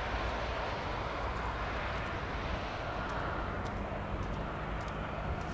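Steady rushing rumble of aircraft engine noise carrying across the airfield, with a faint low hum joining about three and a half seconds in.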